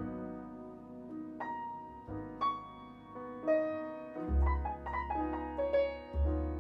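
Grand piano played in a jazz trio: single-note melody lines and chords, each note struck and left to ring, with deep bass notes sounding twice in the second half.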